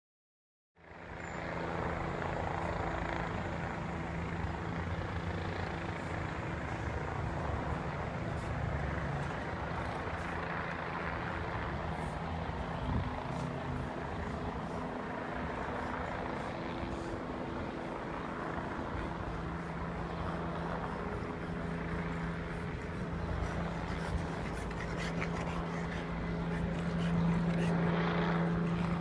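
Helicopter circling overhead, its rotor and engine making a steady drone with a low hum. It starts just under a second in and grows a little louder near the end.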